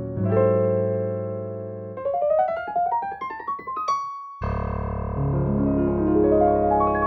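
Sampled Roland MKS-20 digital piano sound from the MKSensation Xtreme plugin, played gospel style: a held chord, then a quick upward run of notes about two seconds in. The sound cuts off briefly just after four seconds, then a new chord comes in with notes added upward one at a time.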